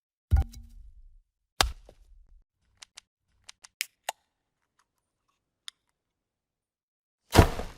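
A run of short transition sound effects for video editing: two sharp hits with a brief low ring, a scatter of small faint clicks, then a louder noisy hit near the end.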